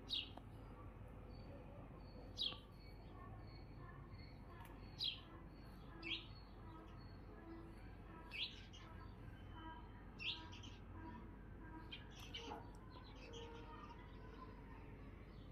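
A small bird chirping: single short, high chirps, each falling slightly in pitch, about seven of them every second or two, faint over a quiet background.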